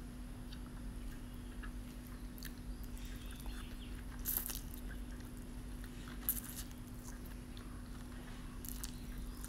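A person slurping and chewing instant noodles eaten with chopsticks, with three short slurps about four, six and nine seconds in, over a steady low hum.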